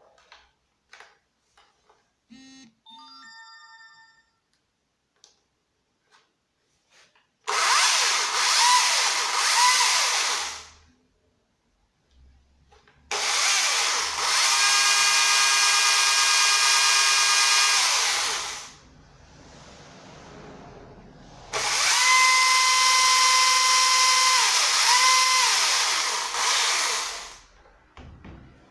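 Husqvarna T536LiXP battery chainsaw run up three times, each run a few seconds of steady electric motor and chain whine that stops between runs; in the first and last runs the pitch dips and recovers shortly before the saw is let off. A few light clicks and a short tone come before the first run.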